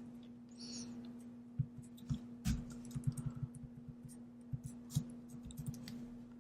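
Typing on a computer keyboard: irregular key clicks, with a steady low hum underneath.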